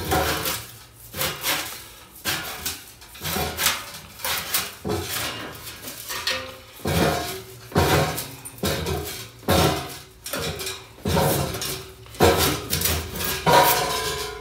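Sheet steel being bent by hand over a pipe anvil, a little at a time, to form a curve: the panel flexes and clanks against the steel pipes in repeated bursts, roughly one a second.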